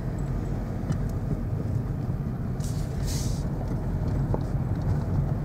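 Car's engine and tyres rumbling low and steady, heard from inside the cabin while driving, with a brief soft hiss about three seconds in.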